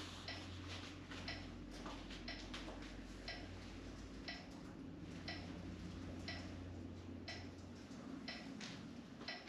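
Steady clock-like ticking, about two ticks a second, over a low background hum that drops away near the end.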